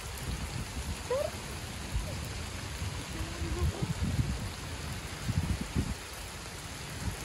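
Steady rain falling on a wet paved walkway, an even hiss, with low rumbling buffets of wind on the microphone a couple of times.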